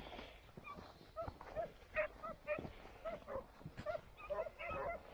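A pack of Italian scent hounds (segugi italiani) giving tongue on the trail of a hare: many short, overlapping yelps, starting about a second in and coming thicker toward the end.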